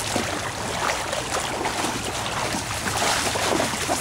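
Shallow river water splashing and trickling as dogs wade through it.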